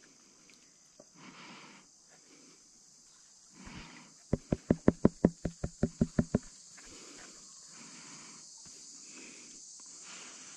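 A quick run of about a dozen sharp knocks, some six a second for two seconds, over a steady high insect hiss.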